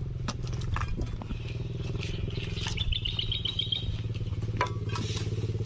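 A small engine running steadily at a low, even idle, with a short high twittering trill about three seconds in and a few light rustles and knocks.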